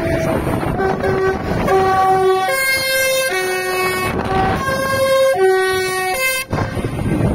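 A tractor's musical horn sounds a tune of held notes that step between several pitches. It starts about a second in and cuts off abruptly near the end, over the steady noise of passing tractor engines.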